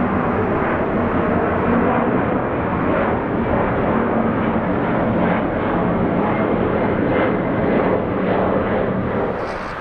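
Jet airliner engine noise, a steady loud rush with a faint low hum, easing off slightly near the end.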